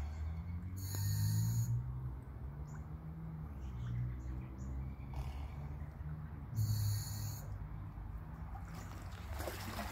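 Scuba diver breathing through a regulator: a short hiss on each inhalation, twice (about a second in and again near seven seconds), with low-pitched exhalation through the regulator in between.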